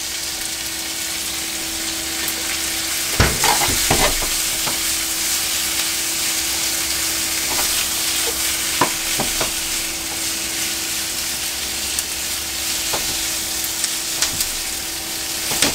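Pork loin, pea shoots and komatsuna sizzling steadily in a hot nonstick frying pan as they are stir-fried with chopsticks. There are a few scattered clicks and knocks of the chopsticks and pan, the largest about three and four seconds in, over a steady low hum.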